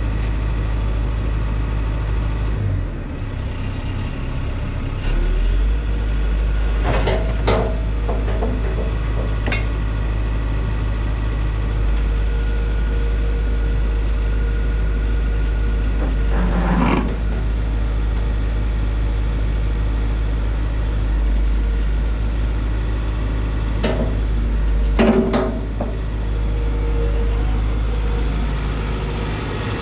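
Atlas 140W wheeled excavator's diesel engine running steadily while the operator works the hydraulics, with several sharp knocks from the machine's moving parts about 5, 7, 9, 17 and 25 seconds in.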